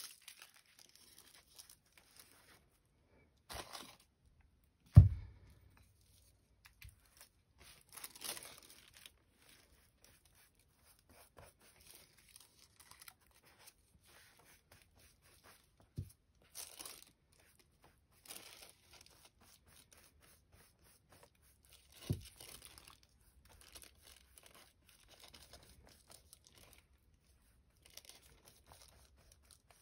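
Thin gel-printed collage paper rustling and tearing in the hands, with a glue brush dabbing on the page between stretches of quiet. One sharp thump about five seconds in is the loudest sound, and there are a couple of lighter taps later.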